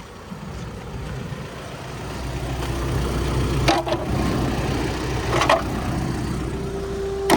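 A van's engine running as the vehicle moves off, its low hum growing louder after the first couple of seconds, with two brief higher-pitched sounds in the middle.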